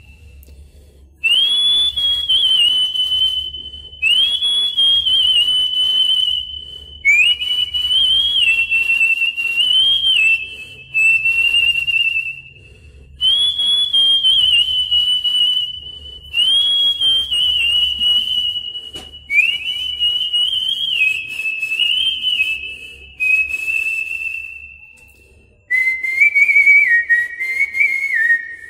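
A man whistling a song melody into a handheld karaoke microphone, in phrases of two to three seconds with short breaks between them, the notes stepping up and down. The last phrase, near the end, sits lower in pitch.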